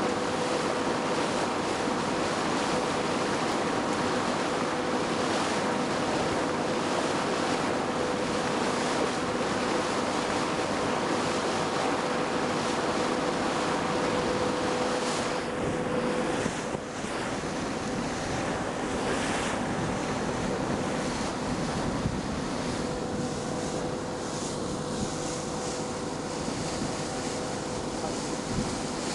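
Boat under way at sea: a steady rush of wind and water with the even hum of the boat's engine. The hum drops away a little past halfway and returns near the end.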